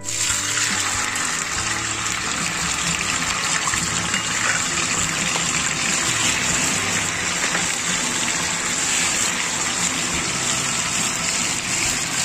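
Tofu cubes sizzling in hot oil in a wok. The sizzle starts suddenly as the tofu goes in, then runs steady and loud.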